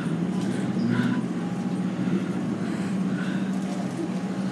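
Melbourne suburban electric train standing at the platform, its equipment giving a steady low hum, with faint scattered sounds of people moving about.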